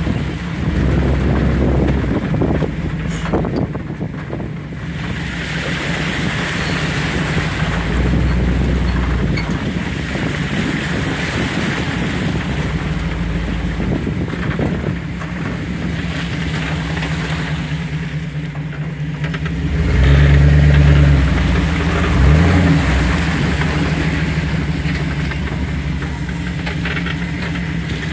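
Off-road vehicle engine running steadily while driving along a rough trail, with two louder bursts of throttle about two-thirds of the way through.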